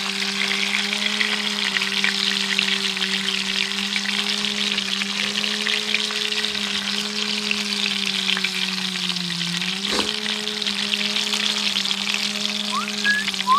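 Bluegill frying in hot oil, with a steady dense crackle and sizzle, over a steady low hum. A single sharp tick comes about ten seconds in.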